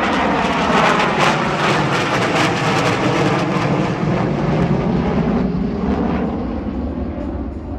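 Jet noise from a B-2 Spirit stealth bomber's four turbofan engines as it passes low overhead: a loud, steady rushing noise with a slowly sweeping, phasing tone. It eases off and thins in the last couple of seconds as the bomber moves away.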